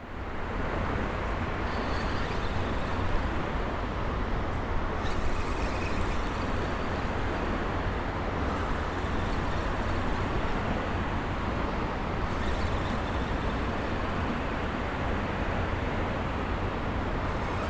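Steady hum of road traffic.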